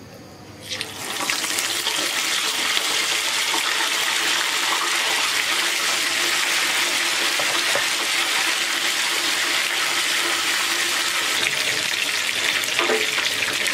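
Chicken leg pieces dropped into hot oil for their second fry, the oil starting to sizzle about a second in and then sizzling hard and steadily.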